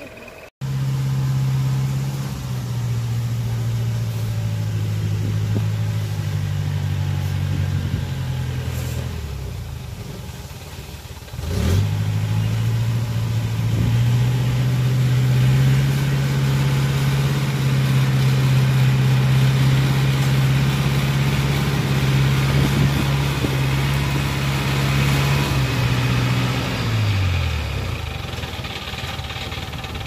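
Engine of a tracked rice-carrier crawler running steadily as it drives, laden with rice sacks, with a pitched hum. The engine note drops and fades near the end as it slows.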